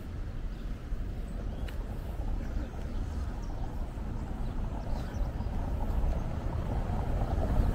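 Outdoor street ambience: a low, uneven rumble with traffic noise, growing louder near the end.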